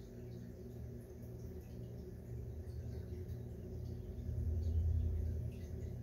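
A steady low hum that swells a little about four to five seconds in, with faint, scattered high chirps over it.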